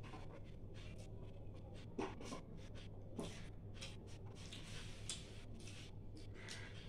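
Eating by hand from a stainless steel plate: fingers scraping and gathering food across the metal in short irregular scrapes and clicks, with chewing and mouth sounds, over a low steady hum.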